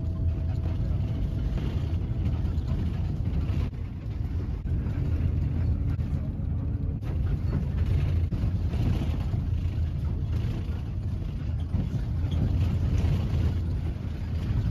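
Steady low rumble of engine and road noise inside a moving vehicle.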